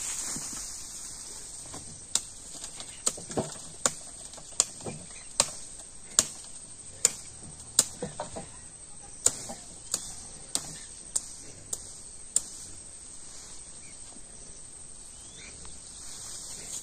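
A run of sharp knocks, one or two a second for about ten seconds and then stopping, over a steady high-pitched insect drone.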